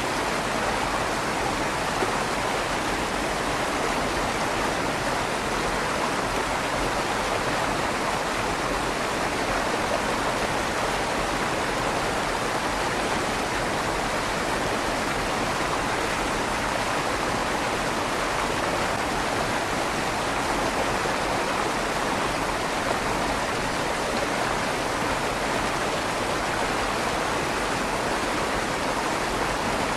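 River water flowing steadily through a stone bridge's tunnel, an even rushing with a slight echo off the stone.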